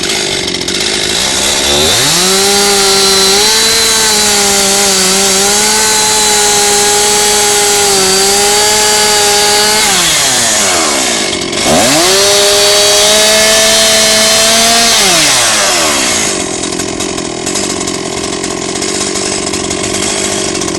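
Chainsaw revved to full throttle twice, the first time for about eight seconds and the second for about three, plainly cutting wood. It falls back to idle between the two runs and again near the end.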